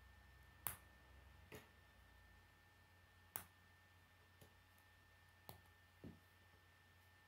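K'nex plastic rods and connectors clicking and tapping as they are handled, with about six sharp, separate clicks, the loudest about a second in and again past three seconds. A faint steady high tone sits underneath.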